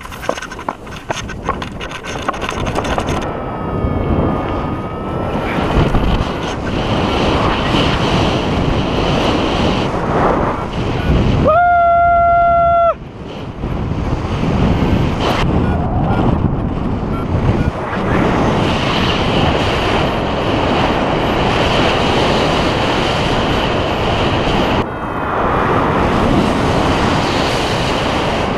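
Wind buffeting the microphone of a paraglider pilot's camera in flight, a loud steady rush that swells and eases in gusts. About twelve seconds in, a steady high tone sounds for just over a second.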